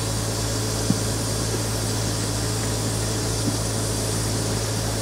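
Steady low machine drone with a constant hiss of air, from the air compressor and air supply of a pneumatic rivet buster held against a rivet head. The rivet buster is not yet hammering.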